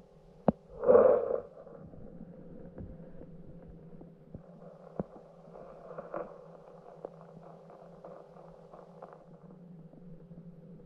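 Steady low hum picked up by a camera held underwater, with a sharp click about half a second in, a louder short burst just after, and a few fainter clicks later.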